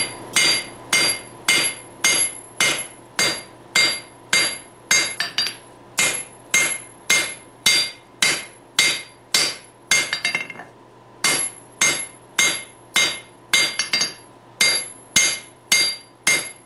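Hand hammer striking hot steel bar stock on an anvil in a steady rhythm of about two blows a second, each blow ringing, with a short pause about ten seconds in. The bar is being drawn out toward a square section.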